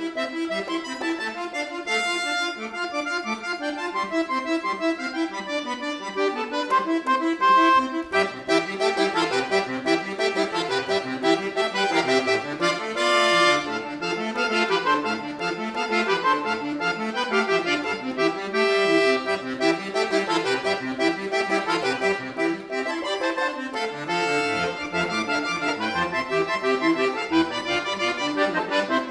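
Solo accordion playing a fast, busy passage of classical music, with low bass notes coming in about eight seconds in.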